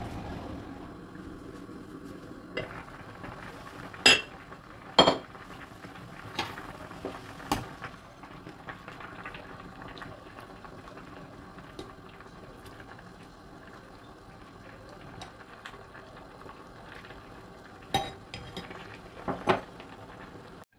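Glass lid and metal ladle clinking against a glass cooking pot as simmering kimchi stew is stirred and ladled, over a faint steady bubbling. Two sharp clinks come about four and five seconds in, lighter taps follow, and two more clinks come near the end.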